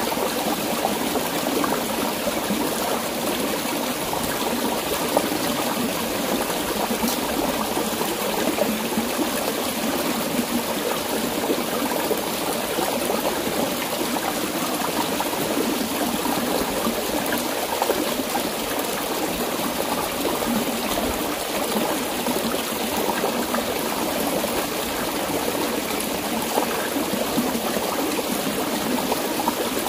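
Shallow rocky stream running over stones, a steady rush and trickle of water.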